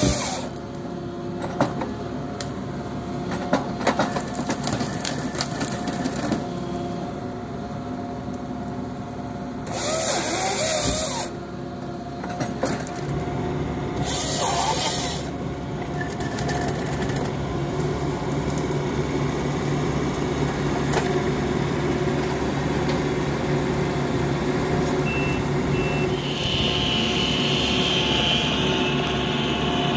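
Excavator diesel engine running steadily while a Kesla 16RH-II processor head works a tree stem, with sharp knocks and cracks in the first few seconds and several brief bursts of machine noise from the head's hydraulics and drive.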